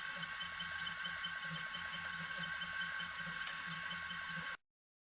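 Stepper motors of a 3018 CNC router with a 5 W laser module whine as the laser head moves, the pitch sweeping up and back down with each move over a steady machine hum. The sound cuts off suddenly about four and a half seconds in.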